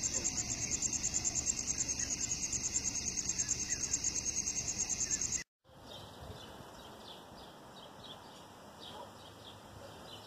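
Crickets chirping in a fast, steady, high-pitched pulse, cut off abruptly about five and a half seconds in. After a short gap comes a quieter background with faint high chirps.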